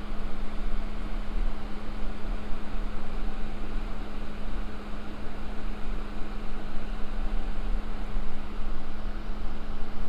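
Steady rushing wind noise on the microphone, buffeting at the low end, over a constant low hum.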